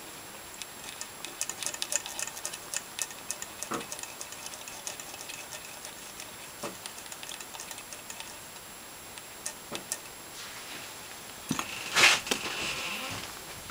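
Hands handling a metal vacuum fuel tap and its plastic fuel pipes on a workbench: a scatter of small clicks and taps, then a louder brief rustle about twelve seconds in.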